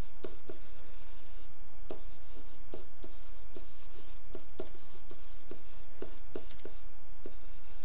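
Stylus writing on a tablet screen: short taps and scratches, about two or three a second, as words are handwritten, over a steady low hum.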